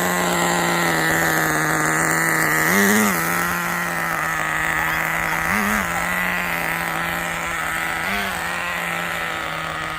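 Small two-stroke nitro engine of a remote-control car idling steadily, with three short throttle blips about three, five and a half, and eight seconds in.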